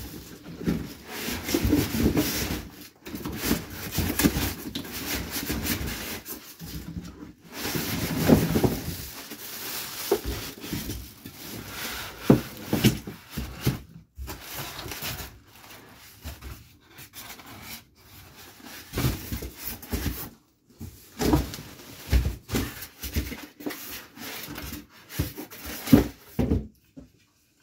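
Unpacking a table saw from its cardboard box: irregular rustling and scraping of packaging, with scattered knocks as parts are lifted and set down, broken by short pauses.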